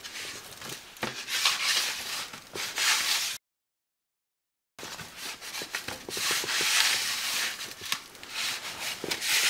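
Hands rubbing dry spice rub into raw beef short ribs and pressing them into the loose rub on an aluminium sheet pan: repeated swells of dry rubbing and scraping. The sound cuts out completely for about a second and a half near the middle.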